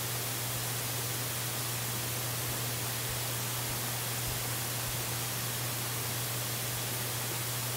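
Steady, unchanging hiss with a constant low hum underneath: the open microphone of a clifftop bird-nest camera, with no calls or other events.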